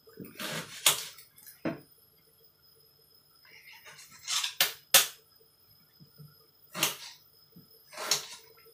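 Kitchen utensils and dishes knocking and clattering, about half a dozen sharp irregular knocks and short scrapes over several seconds.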